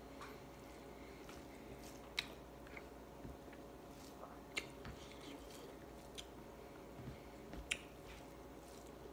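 A person chewing a mouthful of rice and fish, with wet mouth smacks, and fingers squishing rice on a plate while eating by hand. A few sharp clicks stand out, the loudest about two, four and a half and seven and a half seconds in.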